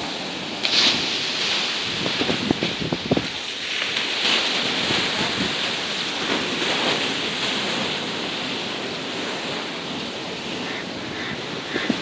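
Sea waves breaking against a concrete seawall, with a steady wash of surf and a louder swell about a second in. Wind buffets the microphone now and then.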